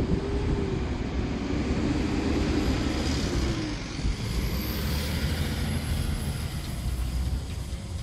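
A passing motor vehicle: a steady engine hum that falls slightly in pitch and fades about three and a half seconds in, over a wide wash of noise. Wind buffets the microphone with a low, uneven rumble.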